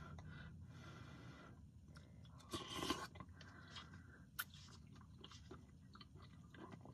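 Quiet chewing and mouth sounds of a man eating spoonfuls of chicken corn chowder, with a louder short burst about two and a half seconds in and a few light clicks of the spoon in the cup.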